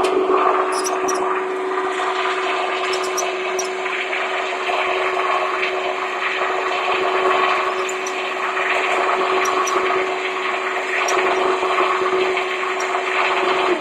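Electric winch motor running steadily under load with an even whine, lowering the antenna mast, then cutting off abruptly near the end.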